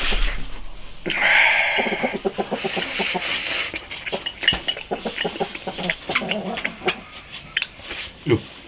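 Chicken clucking in a quick, rhythmic run of calls from about a second in until near the end. Short clicks of chopsticks against a bowl and eating sounds run underneath.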